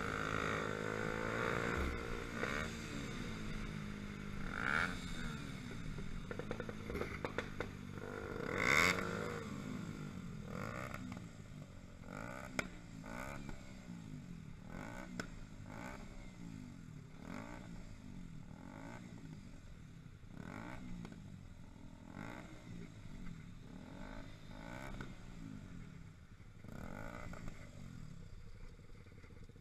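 Motorcycle engine running in slow traffic, its revs rising and falling about once a second, with scattered clicks and knocks, a louder one about nine seconds in.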